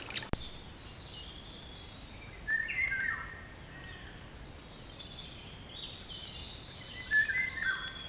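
Songbird singing: two short song phrases, about two and a half seconds in and again about seven seconds in, each with clear notes falling in pitch and higher twittering. A single click just after the start.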